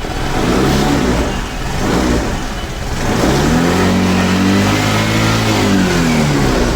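Suzuki Access 125 scooter's single-cylinder four-stroke engine being revved: two short blips, then a longer rev that climbs and falls back. Two fingers partly cover the intake hose to cut the air. With that restriction it runs cleanly and does not stall, which points to the intake hose letting in too much air as the cause of its misfire.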